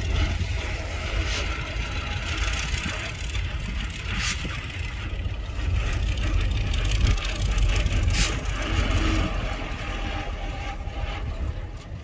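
Heavy diesel earthmoving machinery running with a deep, continuous engine rumble that is loudest in the middle. Two brief sharp noises come about four and eight seconds in.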